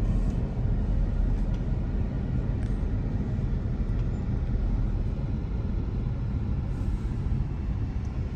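Steady low rumble of a car in motion: engine and tyre noise heard from inside the moving vehicle.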